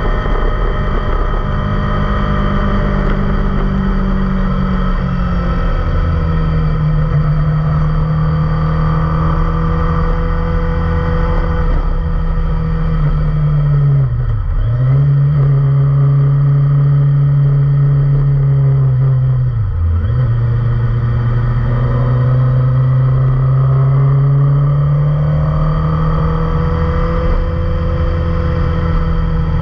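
Kawasaki Ninja ZX25R's 250 cc inline-four running through an Akrapovic full-system exhaust, held at fairly steady mid revs with the pitch drifting slowly. About halfway through and again about two-thirds through, the revs dip sharply for a moment and climb straight back.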